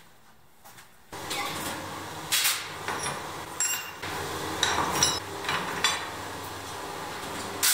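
Steel tool blanks and blacksmith's tongs clinking against each other and the furnace floor as they are loaded into a red-hot furnace for heat treatment. About six sharp metallic clinks over a steady hum that starts about a second in.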